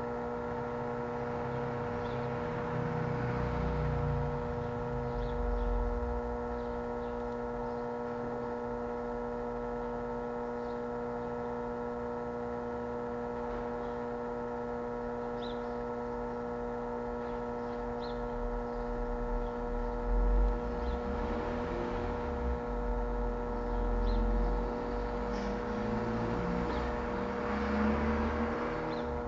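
Steady electrical hum made of several fixed tones, with irregular low rumbles now and then and no speech or music: dead air on an AM radio broadcast.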